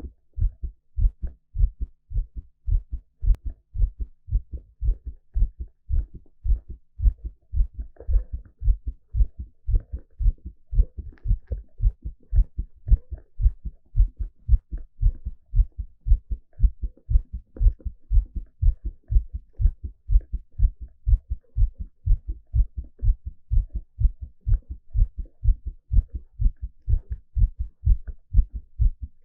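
A man's heartbeat heard close up through a stethoscope on the chest: low, dull thumps beating in a steady, regular rhythm.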